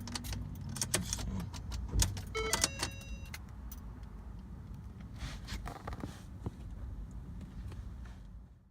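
Clicks and light rattles, like keys and handling, with a brief electronic warning chime about two and a half seconds in, over a low steady rumble. This is a Ford Fusion's electrics coming back to life during a jump start after its battery died.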